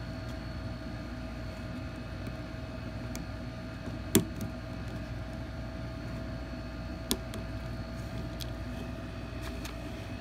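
Small clicks and taps of a pointed hand tool working at a wire connection against an air fryer's sheet-metal chassis, over a steady background hum. The sharpest click comes about four seconds in, another about seven seconds in.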